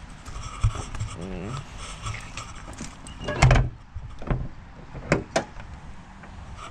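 A run of knocks and clicks from hands-on handling, with a short rising creak about a second and a half in and a louder thump about halfway through.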